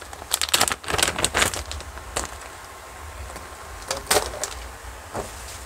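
Boxed neckband earphones being handled and sorted: plastic and cardboard packages clicking and knocking against each other in a run of short clatters, busiest in the first second and a half and again around four seconds in, over a low steady hum.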